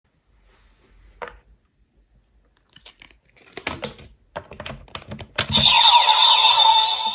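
Plastic clicks and rattles of a DX Gotchard Driver toy transformation belt being handled. About five seconds in, its built-in speaker starts a loud synthesized electronic sound effect of steady high tones and sliding sweeps as the belt activates.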